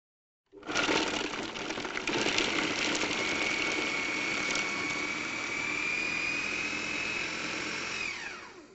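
Electric food processor starting about half a second in and running, chopping tofu, pecans, onion and garlic: clattering of chunks against the blade in the first couple of seconds, then a steady motor whine that rises slightly in pitch. Near the end it is switched off and winds down with a falling whine.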